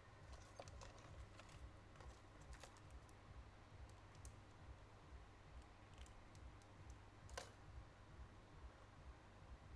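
Near silence with faint, scattered small clicks and taps, thickest in the first few seconds, with one sharper click about seven seconds in.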